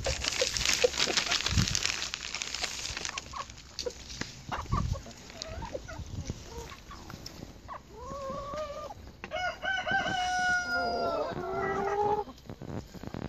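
A flock of chickens clucking, with a burst of dense rustling in the first few seconds. About nine seconds in, a rooster crows: a long stepped cock-a-doodle-doo that holds and then falls away.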